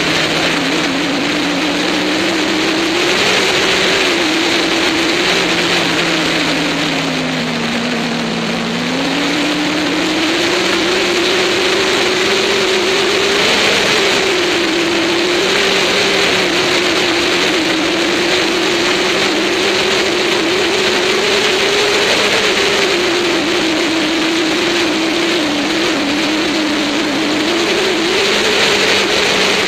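Motorcycle engine running hard at road speed, its revs rising and falling through the bends, dropping low around eight seconds in and climbing again. Heavy wind rush over the bike-mounted camera runs underneath.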